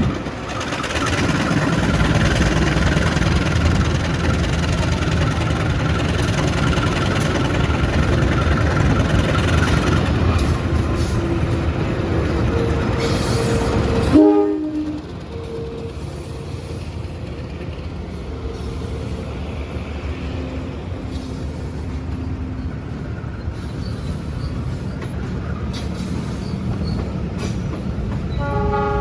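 A train passing close by, its wheels and cars rumbling loudly, until the sound cuts off suddenly about halfway through. A quieter rumble follows, and near the end a train horn begins to sound.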